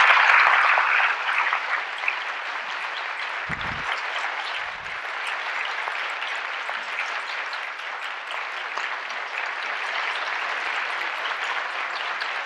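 Large audience applauding, loudest in the first second or so, then settling into steady clapping.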